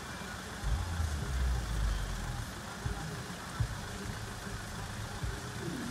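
Van engine idling while stopped close by, with wind gusting on the microphone about a second in.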